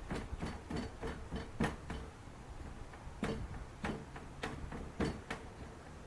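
Irregular light knocks and clicks from hand-assembling wooden extension pieces onto a sand-casting moulding flask: quick taps for the first two seconds, then single sharper knocks every half second or so.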